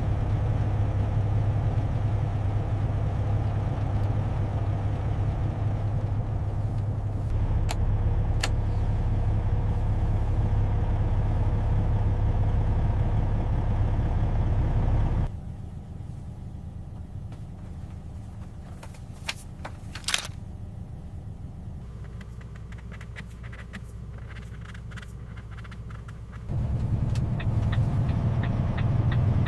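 Low, steady hum of a Peterbilt truck's engine. About halfway through it drops away suddenly to a much quieter stretch with a few sharp clicks, and the hum comes back near the end.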